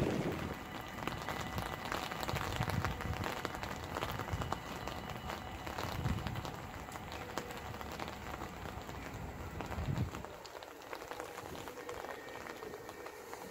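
Rain falling and pattering on a wet platform and on the microphone, with gusts of wind rumbling on the microphone that die down about ten seconds in. Near the end a faint steady whine comes in as an SGMM Sprinter electric train approaches.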